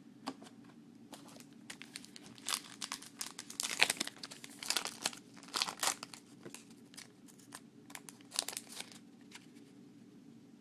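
Trading card pack wrapper crinkling and being torn open, with cards handled: irregular bursts of crackling rustles, the loudest about four seconds in.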